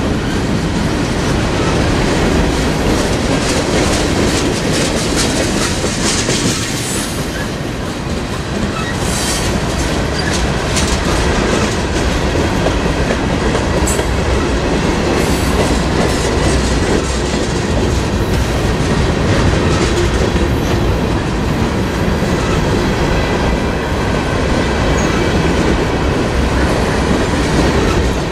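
Freight train's open-top gondola cars rolling past: a steady, loud rumble of steel wheels on rail with rhythmic clickety-clack over the rail joints and a faint high wheel squeal.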